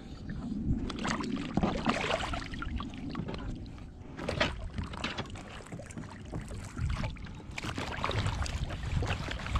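Irregular splashing and sloshing in shallow water, over a steady low wind rumble on the microphone.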